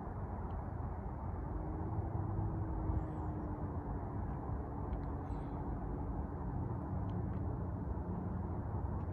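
Steady low rumble of distant traffic, with a faint engine tone that slowly falls in pitch over a few seconds.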